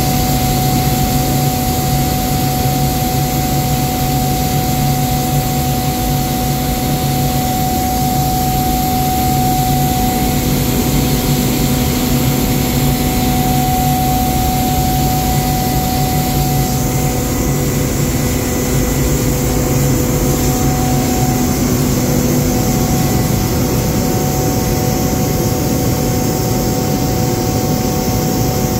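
Atlas Copco GA 75 oil-injected rotary screw air compressor with a 75 kW electric motor, running steadily under pressure: a loud, even machine hum with several steady tones over a rush of air.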